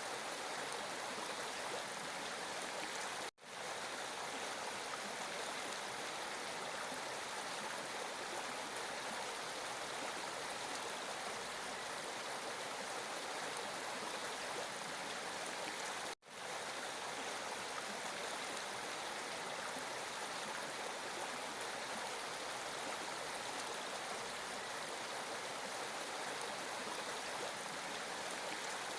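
Flowing water, a steady, even rushing of a stream. The sound cuts out abruptly twice, about 3 seconds and 16 seconds in, and comes straight back each time.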